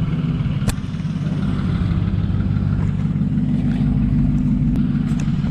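Car engine and road noise while driving, a steady low hum, with one sharp click about a second in.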